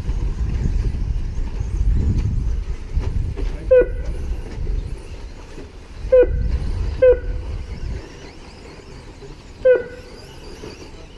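Four short electronic beeps, spaced irregularly, from a race-timing lap counter as cars cross the line. They sound over a low rumble that eases off partway through.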